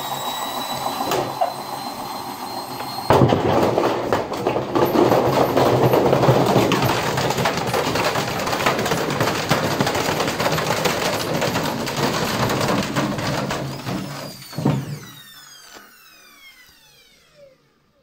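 Indesit washing machine spinning with a heavy brick in its drum. A rising motor whine sounds at first; then, about three seconds in, a sudden loud, continuous banging and clattering begins as the unbalanced drum smashes the cabinet apart. Near the end the drum spins down with a falling whine and the noise dies away.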